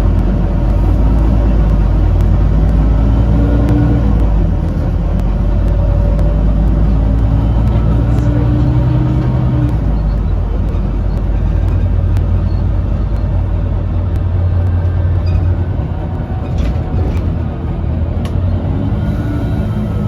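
Double-decker bus running in service, a Volvo B9TL: a steady low engine rumble, with the engine and driveline note rising in pitch twice as it picks up speed, about three and eight seconds in. A few faint clicks and rattles come near the end.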